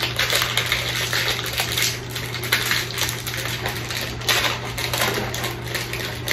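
A plastic wafer packet crinkling and rustling as it is torn open and handled, a dense run of small crackles and snaps.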